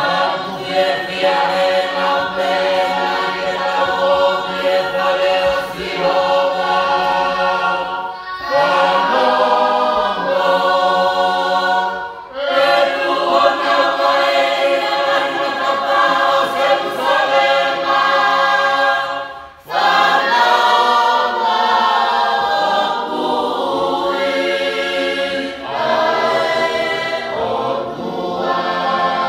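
Church choir singing a Tongan hymn unaccompanied in several voice parts. The notes are held in long phrases, with short breaks about 8, 12 and 20 seconds in.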